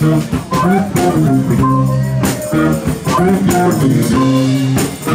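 Live blues band playing an upbeat groove, with guitar and bass guitar to the fore over a steady beat.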